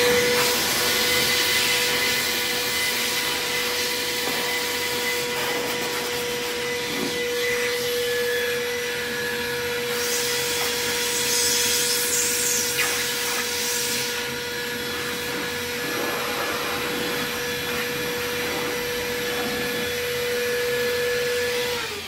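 Vacmaster 2.5-gallon, 2 HP wet/dry shop vacuum running at full speed: a steady high motor whine over rushing air, with a hissier stretch around the middle. Near the end it is switched off and the whine falls away as the motor winds down.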